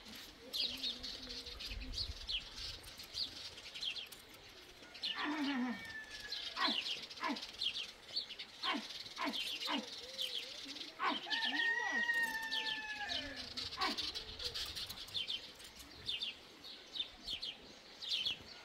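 Animal calls in a rural yard: several short pitched calls around five to ten seconds in and one longer, slightly falling call about twelve seconds in, over a steady chatter of small high chirps.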